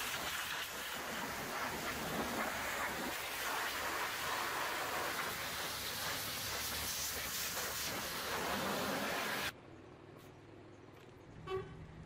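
High-pressure washer jet hissing steadily as it blasts a truck's engine bay and fender, cutting off suddenly about nine and a half seconds in. After that it is much quieter, with one short horn-like toot near the end.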